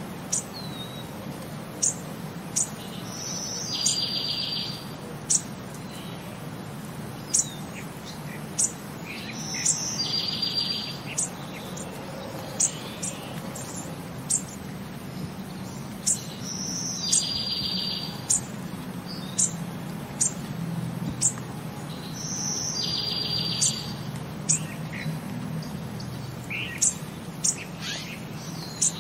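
Birdsong ambience: scattered short, high chirps, and the same buzzy trilled call of about a second repeating roughly every six seconds, over a steady low hum.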